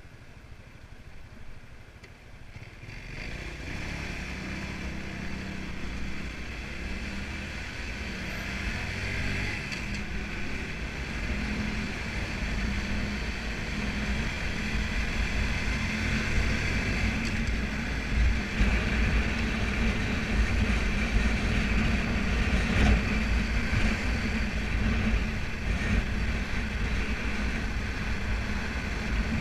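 Motor scooter's small engine pulling away about three seconds in and then running steadily as the scooter rides along, getting louder as it gathers speed, with wind rushing over the microphone.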